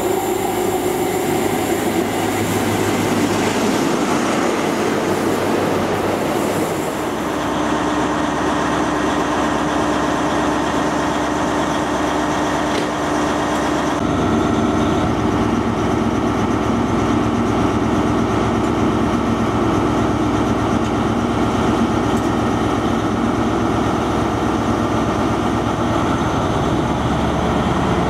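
Class 43 HST power car's diesel engine running as the InterCity 125 moves through the station, with steel wheels on the rails. About seven seconds in and again about fourteen seconds in the sound changes abruptly to a steadier engine drone with a few held tones.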